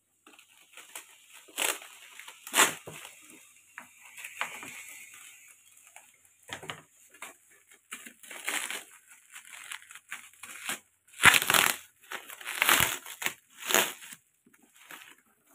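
Clear plastic wrap around a cardboard parcel crinkling and crackling as hands grip and pull at it, in irregular bursts, loudest near the end.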